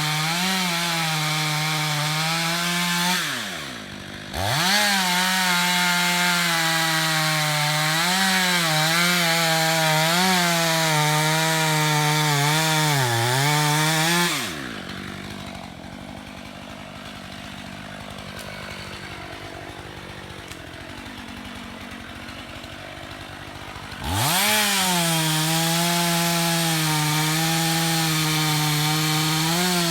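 Stihl MS 661 two-stroke chainsaw running at high revs and cutting wood, its pitch dipping and wavering under load. About halfway through it drops to a quieter idle for several seconds, then revs back up to full throttle.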